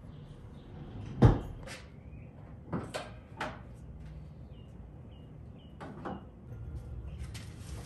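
A few sharp knocks and clicks, the loudest a little over a second in and others around three and six seconds, from a sports car's hood being opened and propped on its metal support rod.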